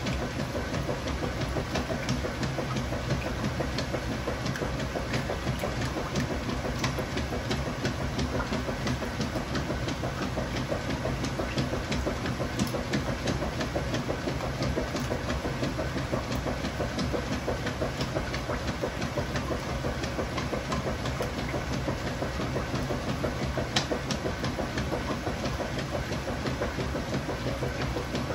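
Kenmore Ultra Fabric Care top-load washing machine running steadily: a low motor hum under an even wash of noise, with frequent light clicks.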